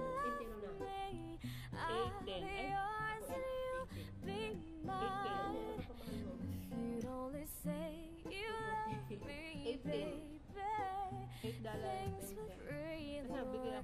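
Background music: a song with a woman singing over an instrumental backing.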